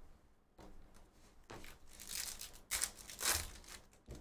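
Hands sliding and flipping through a stack of Topps Chrome baseball trading cards: a series of dry, papery swishes of card against card, loudest in the second half.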